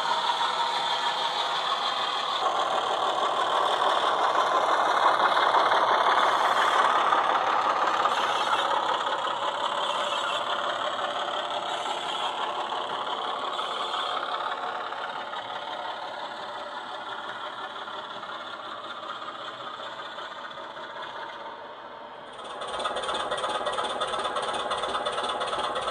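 Model Class 24 diesel locomotive's DCC sound decoder playing a Jamie Goodman recording of the Sulzer diesel engine through the model's small speaker, with the model wagons rattling over the track. The sound swells as the train nears and fades as it draws away, and about three and a half seconds before the end it changes abruptly to a brighter, clattering sound.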